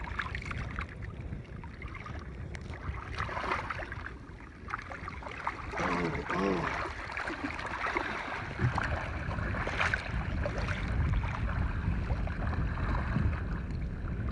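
Wind buffeting the microphone over shallow, choppy saltwater lapping and sloshing around a wading angler, with small splashes as a fish is held in the water to revive it.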